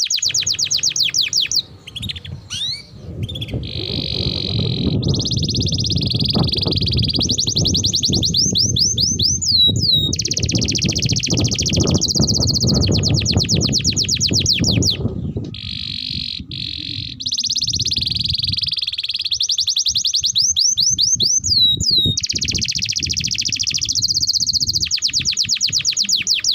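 Domestic canary singing a long song of fast rolling trills, switching from one repeated-note phrase to the next every second or two, with a short break about two seconds in. A low rumbling noise runs underneath for much of it.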